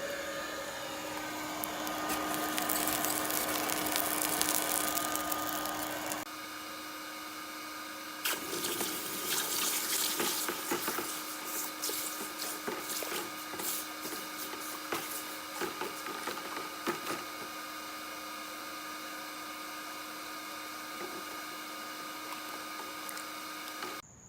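A forge blower hums steadily, and the sound cuts about six seconds in. From about eight seconds in comes a run of sharp crackles and sizzling as the hot rebar axe head is quenched in water to harden it.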